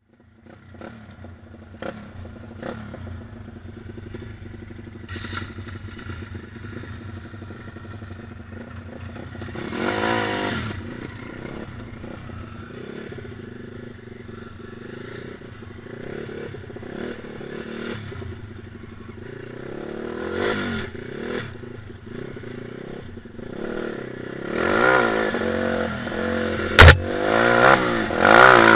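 Stomp KZR 140cc pit bike's single-cylinder four-stroke engine running under a rider on a dirt trail, heard from onboard. It revs up about ten seconds in and again around twenty seconds, then repeatedly near the end, amid the clatter of the bike over rough ground. About 27 seconds in there is one sharp knock, the loudest sound.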